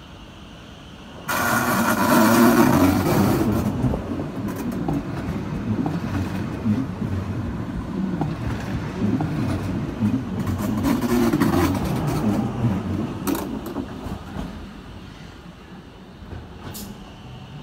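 A Stadler ABe 4/12 "Saphir" three-car low-floor electric multiple unit of the metre-gauge Wynental- und Suhrentalbahn passing close by, its wheels rumbling on the rails. The sound starts abruptly about a second in and fades near the end, with a few sharp clicks.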